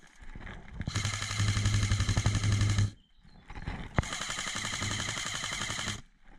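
Airsoft electric rifle firing two full-auto bursts of about two seconds each, a second apart: fast rattling shots over the hum of the gearbox motor.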